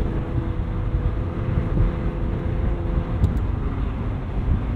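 2020 McLaren 720S Spider's 4.0-litre twin-turbo V8 running under way, with tyre and road rumble. The engine's steady tone fades out about three seconds in.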